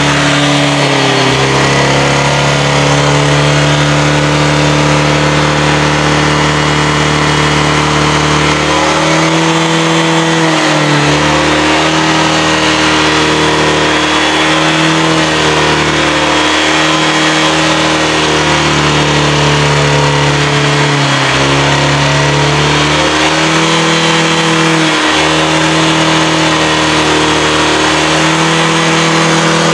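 Honda Vario scooter's single-cylinder four-stroke engine idling, then revved in several short throttle blips from about nine seconds in, the revs rising and dropping back each time. The top end feels restricted, which the mechanic puts down to a clogged catalytic converter and blocked muffler.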